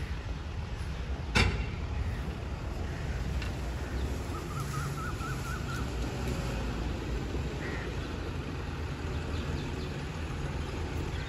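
Heavy diesel tipper truck's engine running at low revs as it drives slowly over rough dirt, with one sharp clank about a second and a half in. A short, high, wavering call is heard about five seconds in.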